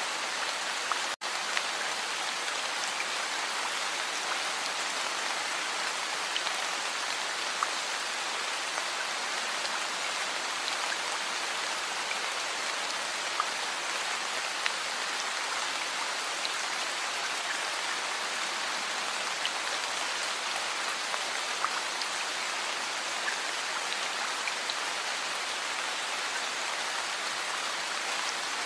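Heavy rain falling steadily, a dense even hiss with scattered individual drops ticking through it. The sound cuts out for an instant about a second in.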